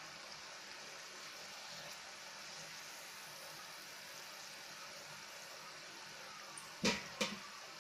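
Hot oil sizzling steadily around breaded chicken cutlets deep-frying in a pan. Near the end come two sharp knocks about a third of a second apart.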